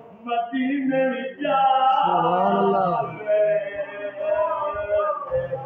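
A man singing a Punjabi naat, a devotional praise song, in long held notes; about two seconds in, one note bends up and down.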